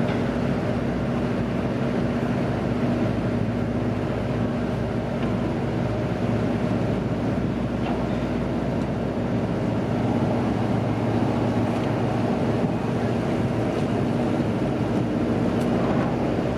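Purse seine fishing boat's engine running at a steady hum while the boat maneuvers slowly into its slip, with wind buffeting the microphone.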